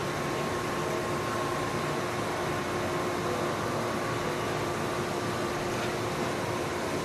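Steady rushing noise with a faint, even hum underneath, from an electric commuter train moving slowly through an automatic train-wash plant.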